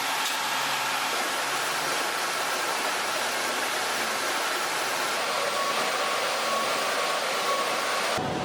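A woodworking machine running with a steady whooshing noise and a faint high whine; the sound cuts off abruptly just before the end.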